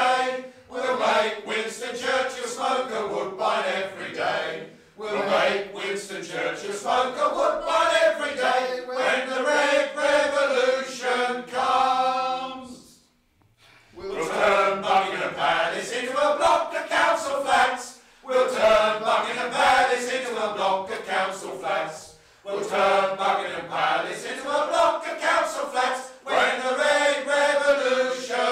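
Choir singing over the closing credits, in phrases of a few seconds with short pauses between them; the longest pause comes about halfway through.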